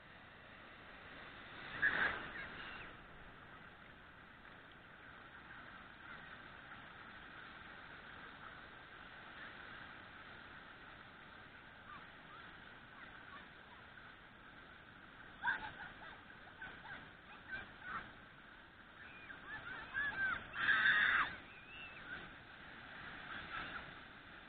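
A few short animal calls, spaced seconds apart over a steady hiss, with the loudest cluster about seven-eighths of the way through.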